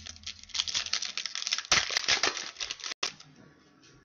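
Foil trading-card pack crinkling and cards being handled: a rapid run of crackly clicks and rustles, densest in the middle and thinning out near the end.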